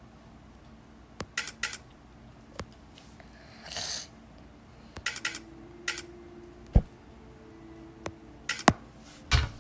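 Scattered light clicks and clattering knocks of small hard objects being handled, with a short rustle about four seconds in and sharper, louder knocks about seven seconds in and just before the end.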